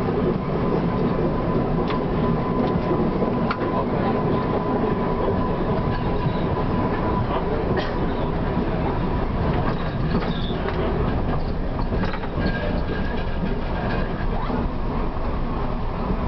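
TW6000 tram running along the track: a steady rumble of wheels on rails with scattered clicks, and a faint steady whine through the first half.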